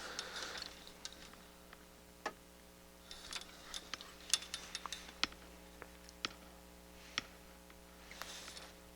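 Faint, scattered light clicks and taps from test probes and small parts being handled during component testing, with a cluster of quick clicks in the middle. A low steady electrical hum runs underneath.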